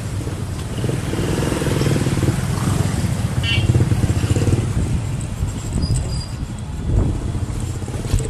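Wind buffeting the microphone and a steady rumble of riding along on an e-bike, with a faint motor hum.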